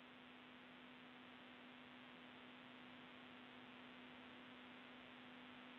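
Near silence: faint steady hiss with a low steady hum on an open space-to-ground audio link.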